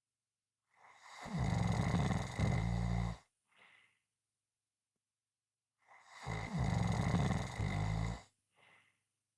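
A sleeping person snoring loudly: two long snores about five seconds apart, each followed by a short, faint breath.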